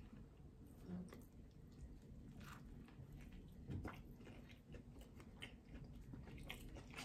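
Faint close-up eating of a crispy fried chicken sandwich: a bite, then chewing with scattered soft crunches.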